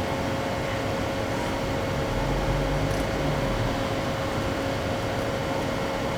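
Johnsford CNC milling machine running with a steady hum and a constant whine. A lower drone comes in about two seconds in.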